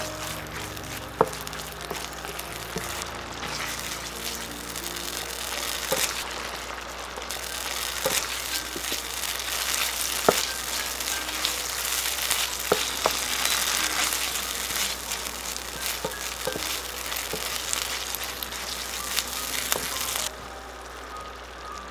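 Tuna and pesto sauce frying with a steady sizzle in a nonstick pan, with a wooden spatula scraping and knocking against the pan now and then as it is stirred. The sizzle cuts off abruptly near the end.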